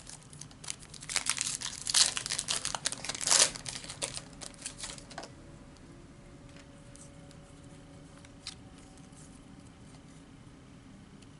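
Plastic-foil wrapper of a Panini Prizm trading card pack crinkling and tearing as it is opened. The crackling runs for about five seconds, with two loudest rips in its first half.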